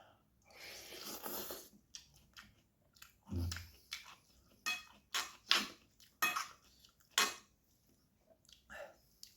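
Close-up eating of spicy noodles: chewing and a longer slurping noise, then a run of short sharp clinks and knocks from the utensils against the bowl.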